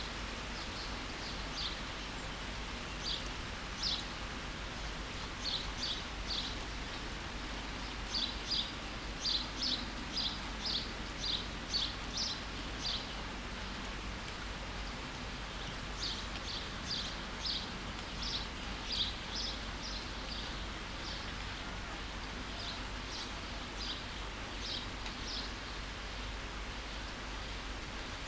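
Steady rain falling, with a bird singing short, repeated high chirps in two long runs over it, pausing for a few seconds midway.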